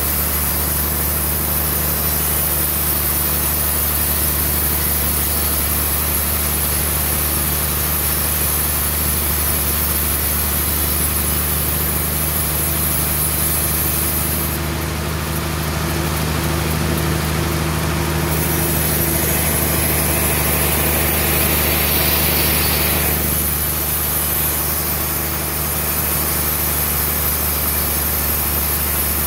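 Large band sawmill running with a steady hum as its blade rips a trembesi (rain tree) log lengthwise into a slab. About three-quarters of the way in, a hiss builds up and then stops suddenly.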